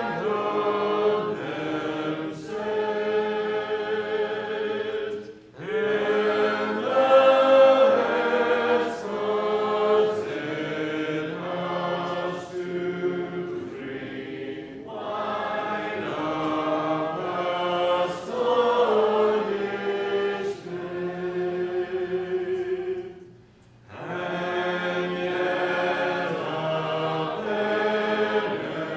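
A congregation singing a metrical psalm together, held sung lines with two short breaks between phrases, about five seconds in and near the end.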